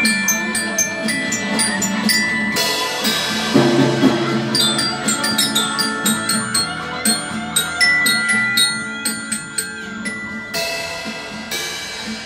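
Glockenspiel struck with mallets, a melody of bright ringing notes over a recorded backing song. Crashes about three seconds in and again near the end, and the whole grows quieter over the last few seconds.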